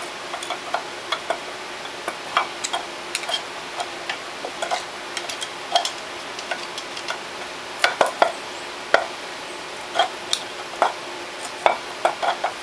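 Steel screwdrivers clicking and scraping against the ring gear and metal case of an ATV rear differential as the ring gear is pried up: irregular metal clicks and scrapes, coming faster near the end, over a faint steady hum.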